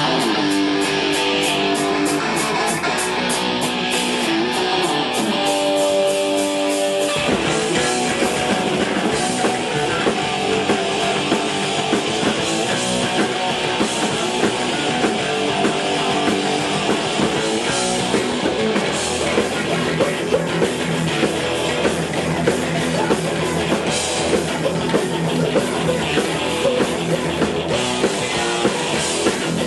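Live punk rock band with electric guitars, bass guitar and drum kit. The song opens sparsely with a few held notes, then about seven seconds in the full band comes in loud and driving.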